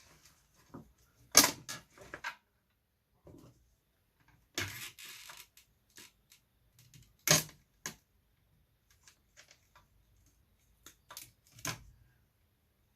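Scattered clicks, knocks and clatter of tools and loose parts being handled while an old Apple eMac all-in-one computer is taken apart. The loudest is a sharp knock about a second and a half in, with a short scraping rattle around five seconds in and more knocks near seven and eleven seconds.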